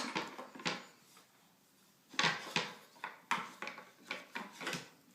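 Puzzle pieces knocking and clattering against the puzzle board as a toddler handles them and fits them in: a series of short, irregular knocks, a few at first, then a brief pause, then a quicker run of taps.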